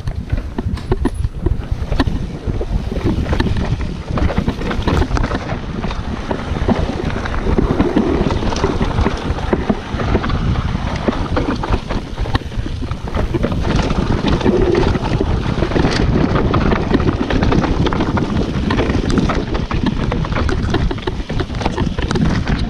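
Mountain bike descending a rocky dirt trail at speed: tyres rolling and crunching over dirt and stones, with the bike rattling and knocking continuously over the bumps. Wind rushes over the action camera's microphone.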